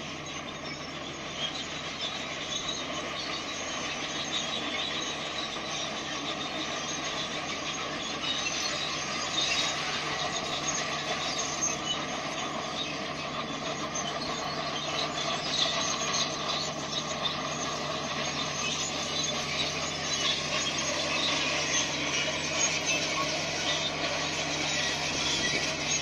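Crawler bulldozer's diesel engine running, with its steel tracks clattering and squealing, getting louder as it goes.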